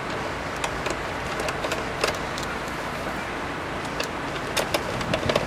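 Steady outdoor background noise with a vehicle-like hum, over which come scattered light clicks and taps of a Torx screwdriver and hands working at the plastic indicator lens beside a Scania truck headlight, the clicks growing more frequent near the end.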